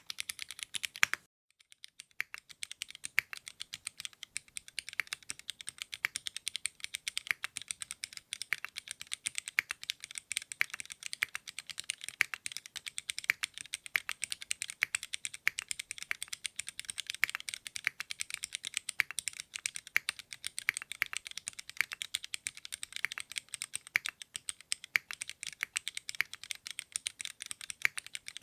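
Typing on a custom mechanical keyboard, a Singakbd Rubrehaku build: a fast, continuous stream of keystroke clacks, broken by a brief silence about a second in.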